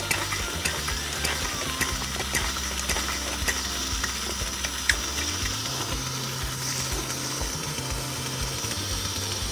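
Coleman 533 Dual Fuel liquid-fuel stove's burner hissing steadily during warm-up while its fuel tank is hand-pumped. A light click comes with each pump stroke, about twice a second, for the first few seconds.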